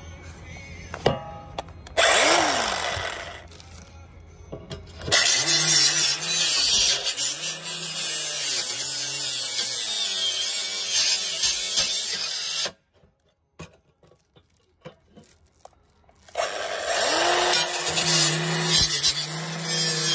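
Compact handheld circular saw cutting into a black rail section: a short burst about two seconds in, then the motor running under load with a wavering pitch for about seven seconds. It stops suddenly, and after a few seconds of quiet it starts cutting again.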